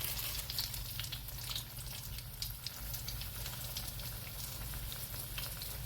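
Chicken pieces browning in hot canola oil in a pan: a steady sizzling hiss with frequent small pops and crackles.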